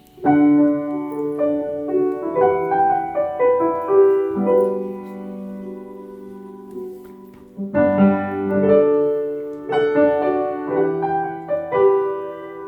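Piano playing a slow instrumental introduction in broken chords and single notes. A chord is left to ring and fade out, and a new phrase begins just before eight seconds in.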